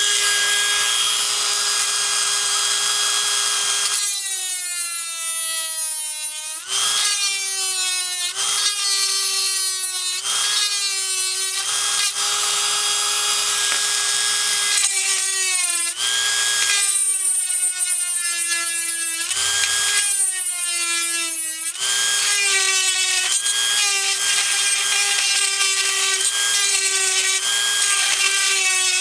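A small electric drill drilling out the rivet of a die-cast toy car. Its motor whine is steady, and its pitch sags again and again as the bit bites into the metal under load, then recovers.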